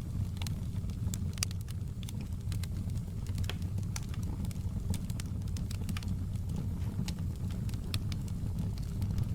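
Wood fire burning in a fireplace, with frequent sharp irregular crackles and pops over a steady low rumble of the flames.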